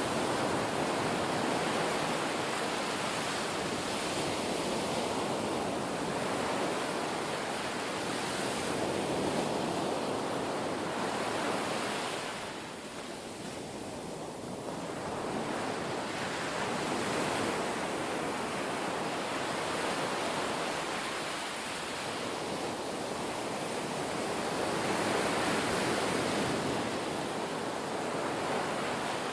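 Ocean surf: waves washing in and drawing back, a steady rushing that swells and eases every few seconds, with a clear lull about halfway through.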